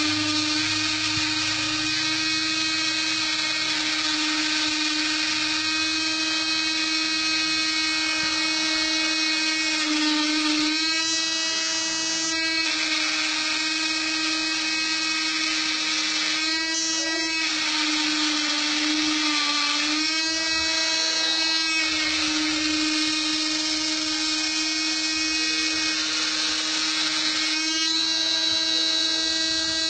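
Mini DIY GRBL CNC engraver running: the spindle motor's steady high whine, with the stepper motors' higher tones shifting in pitch as the axes move and dropping out briefly several times.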